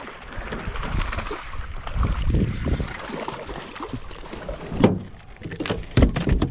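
Water sloshing and wind around a small boat on open sea, with several sharp knocks and thuds in the last two seconds.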